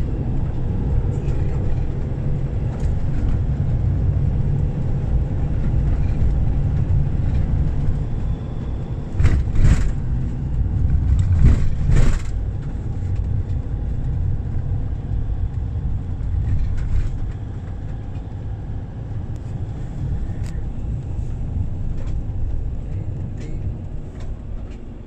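Car driving on a paved road, heard from inside the cabin: a steady low rumble of engine and tyres, with a couple of brief louder bumps about ten and twelve seconds in, then running a little quieter.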